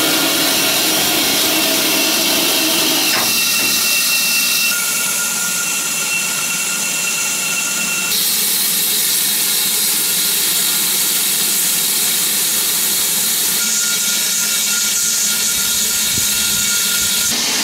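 Steam hissing steadily from the BR Class 9F 2-10-0 steam locomotive 92203 Black Prince, with faint steady whistling tones in the hiss. The hiss changes in character abruptly three or four times.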